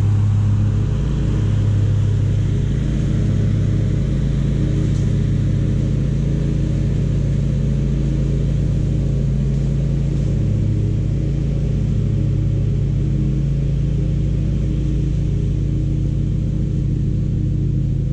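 Zero-turn riding mower's engine running steadily at mowing throttle, an even, unchanging hum.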